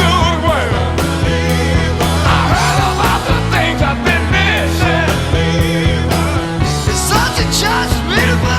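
Psychedelic rock music in an instrumental passage: sustained bass notes under a wavering, bending lead melody line.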